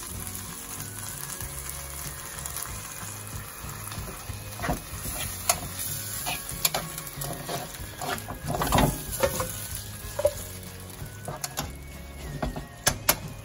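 Spaghetti and sauce sizzling in a frying pan just after a splash of pasta water. From about four seconds in, a metal utensil clinks and scrapes against the pan as the pasta is tossed, loudest near the end.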